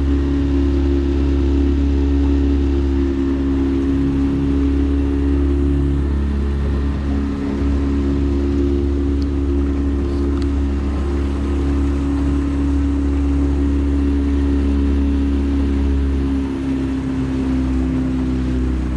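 Small 9.9-horsepower outboard motor running steadily and loud, pushing a johnboat along, as a drone of even tones over a low rumble of wind and water.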